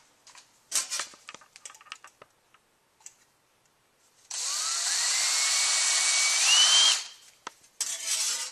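Power drill with a number 35 bit drilling out the plugged hole in a transmission valve-body separator plate to 110 thousandths, running for about three seconds with a whine that rises in pitch. A few light clicks of parts being handled come before it.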